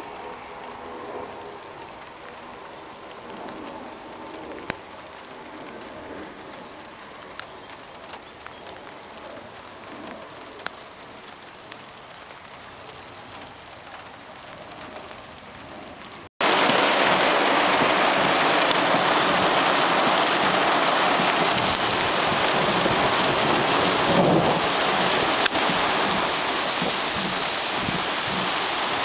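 Faint outdoor ambience with a few sharp ticks, then an abrupt cut a little past halfway to heavy thunderstorm rain pouring down in a loud, steady hiss. A low rumble of thunder swells under the rain about three-quarters through.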